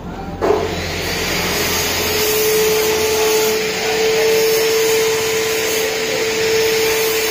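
An electric power tool, most likely a handheld angle grinder, switched on about half a second in and running steadily, its motor whine settling to an even pitch.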